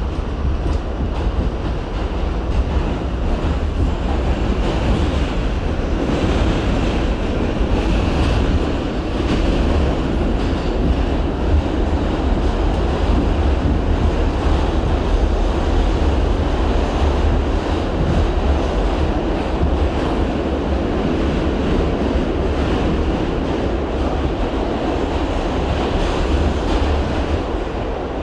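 R68 subway train running along the track: a loud, steady rumble of wheels and running gear.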